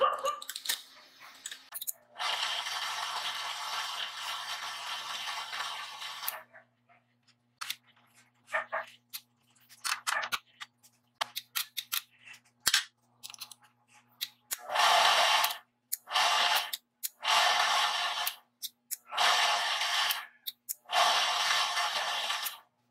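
Homemade power hacksaw's washing-machine motor and worm gear reducer running in short test runs, switched on and off: one run of about four seconds near the start, a stretch of scattered clicks, then five runs of about a second each in the second half.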